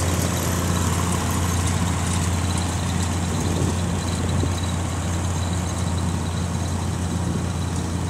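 Engines of the pressure-washing units and the air compressor running steadily at an even speed: a constant low drone with a hiss over it.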